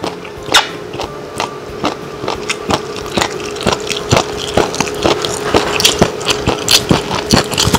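Close crunchy chewing of a piece of dasima (kelp) on a clip-on microphone: many sharp, irregular crunches, a few a second, that grow louder toward the end.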